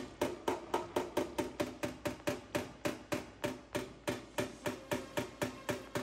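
PDR blending hammer tapping on a car's front fender, about four light, even taps a second, knocking down high spots left in a dent repair.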